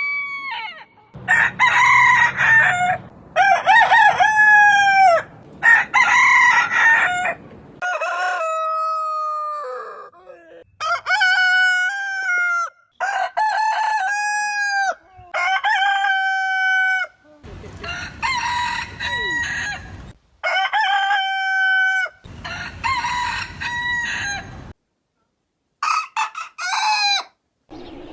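Roosters crowing, about eleven crows one after another, each a cock-a-doodle-doo of one to two and a half seconds ending in a held, drawn-out note. The background changes abruptly between crows, as separate recordings spliced together.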